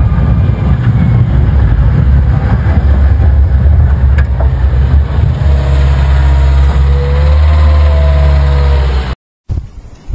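A motor engine running loud and steady close by, swelling slightly about six seconds in, then cutting off abruptly about nine seconds in.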